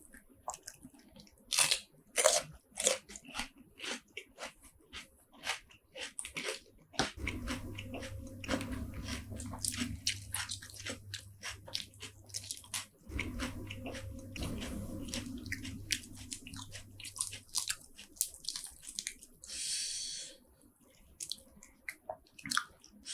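Close-miked eating of spicy seafood: sharp crunches and cracks for the first several seconds, then steady chewing, with a short wet slurp-like hiss near the end.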